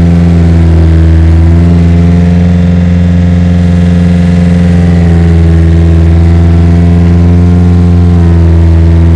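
Bulldozer engine sound running loud and steady at one pitch.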